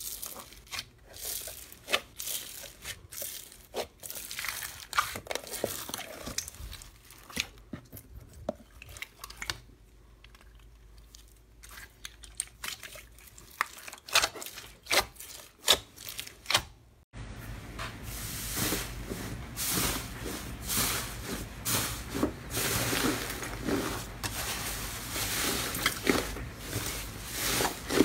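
Slime being squeezed and kneaded by hand: irregular small crackles and clicks as clear green slime full of foam beads is pressed. About two-thirds through, the sound changes abruptly to a louder, denser crackling and squishing as blue slime is worked.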